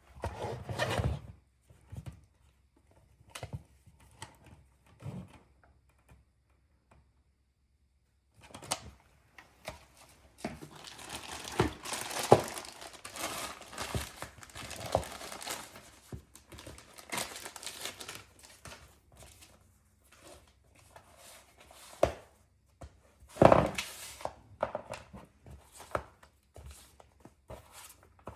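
Plastic packaging being unwrapped by hand, crinkling and tearing, with scattered knocks. It pauses for a couple of seconds early on, then comes dense rustling, and two sharp knocks fall near the end.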